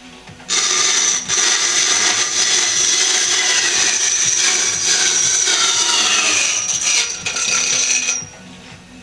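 Hand-cranked horizontal band sawmill's blade cutting through wood: a loud, steady sawing noise with a high ringing tone, starting about half a second in and stopping abruptly shortly before the end.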